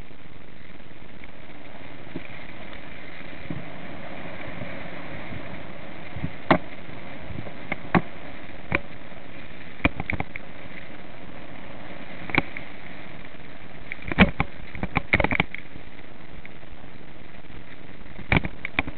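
Mountain bike rolling down a rough, rutted dirt track: a steady rush of tyre and wind noise, broken by sharp knocks and clatters as the bike jolts over ruts, with a quick run of them about three-quarters of the way through.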